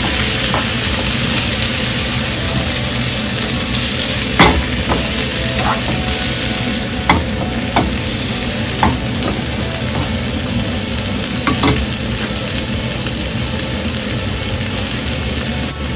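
Sliced carrots, onion, radish and pineapple tidbits sizzling steadily in hot oil in a nonstick frying pan while being stirred with a plastic spoon, which knocks against the pan now and then during the first twelve seconds.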